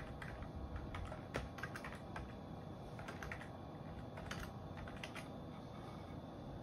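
Faint, scattered keystrokes on a computer keyboard as a shutdown command is typed at a terminal, over a steady low hum.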